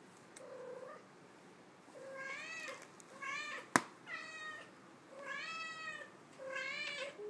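Ragdoll cat meowing repeatedly, about six short meows, with a sharp click a little past halfway.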